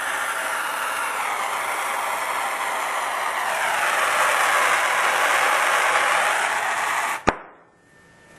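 Plumber's gas torch flame hissing steadily while heating a copper pipe fitting for soldering, growing louder about halfway through. Near the end a sharp click comes and the hiss stops suddenly.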